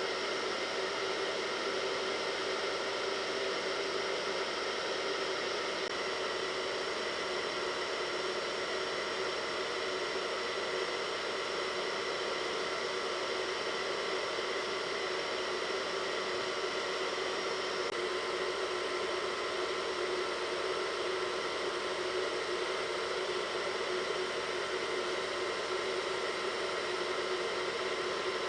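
Hair dryer running steadily, a constant blowing hiss with a faint steady whine.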